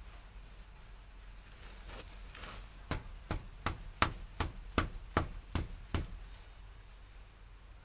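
A run of about nine sharp, evenly spaced knocks, roughly three a second, made while working on a Pajero's front brake caliper.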